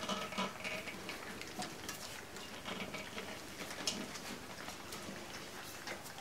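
Several puppies eating dry kibble from a steel feeding pan: a busy patter of crunching and small clicks of food and teeth against the metal pan.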